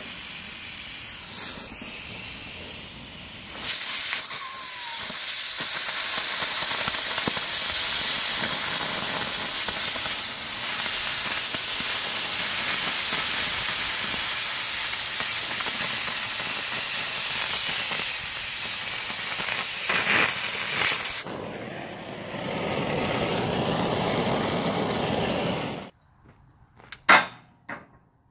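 Oxy-fuel cutting torch burning through steel plate, a strong steady hiss that gets louder about four seconds in and drops back to a lower hiss for the last few seconds. It cuts off abruptly near the end and is followed by a couple of sharp knocks.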